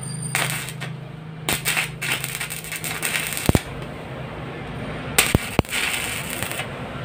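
Stick arc welding on the steel sliding-gate frame: the arc crackles and sizzles in about four short bursts, with a few sharp clicks.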